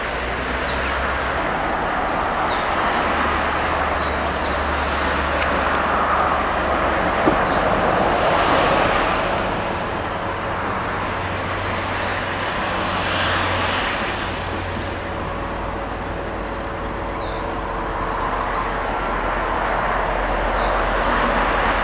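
Distant vehicle noise across the valley: a steady wash with a low hum that swells twice. A bird gives short swooping chirps every few seconds.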